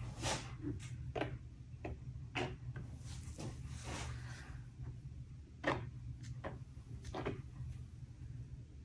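Irregular short scraping strokes of a hand-held spreader dragged across a canvas, spreading a coat of paint, over a steady low hum.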